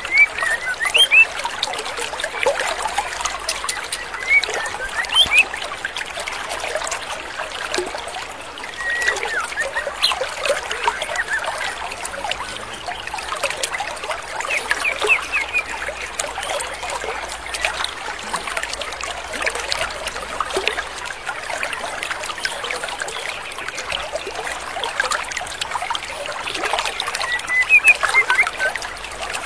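Stream water running steadily, with short chirps and whistles every few seconds from a female white-rumped shama (murai batu).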